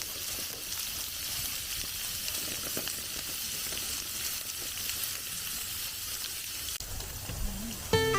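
Food sizzling as it fries in a pan, a steady high hiss with fine crackling. Background music comes in near the end.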